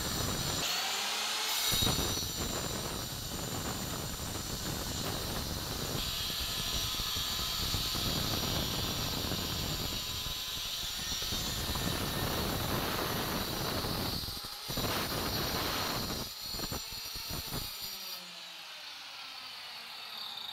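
Handheld electric stone cutter with a diamond blade grinding through stone slabs: a steady, gritty whine with several abrupt shifts in level, quieter near the end.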